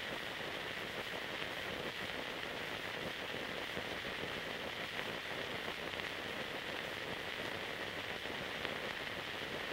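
Steady hiss with fine crackle: the noise floor of an old film transfer that has no soundtrack.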